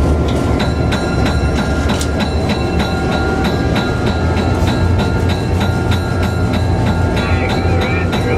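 EMD F3 diesel locomotive's EMD 567 engine running, heard from inside the cab as it rolls slowly. From about half a second in, the locomotive bell rings steadily at about three to four strokes a second.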